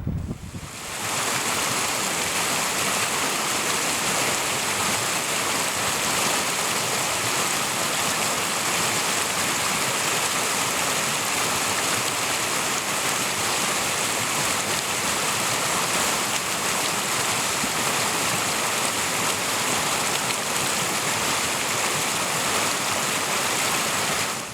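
Steady rushing of flowing stream water, an even hiss with little low rumble, fading in over the first second and cutting off sharply at the end.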